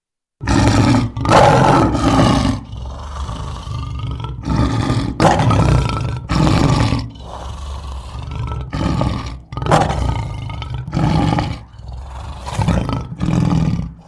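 Lion roaring: a run of about ten loud roars and grunts, one every second or so.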